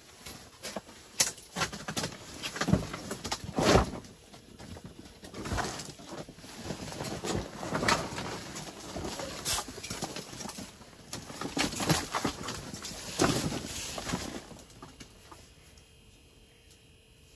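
Irregular crunching, scuffing and rustling of someone moving about on snow-covered ice in winter clothing, dying down for the last few seconds.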